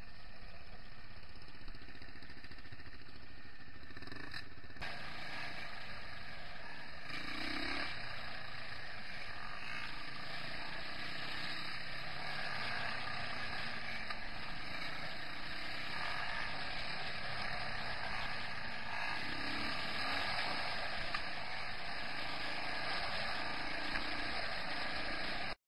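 Off-road motorcycle running steadily while riding along a dirt trail.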